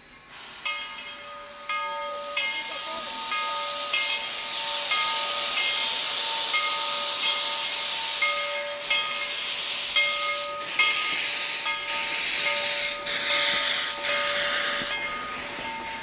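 Steam locomotive Skookum No. 7 starting away: a loud hiss of steam blowing from its open cylinder cocks, over a locomotive bell ringing about once a second. A few slow exhaust chuffs come in the second half as it gets rolling.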